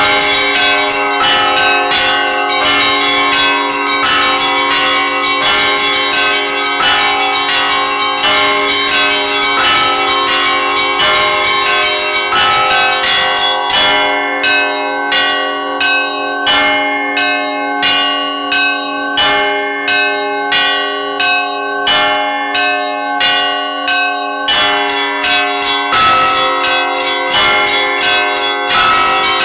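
Russian Orthodox church bells rung by a bell ringer: rapid strokes on several tuned bells over long, lingering low bell tones. About halfway through, the small high bells drop out, leaving slower, evenly spaced strokes. The full peal returns near the end.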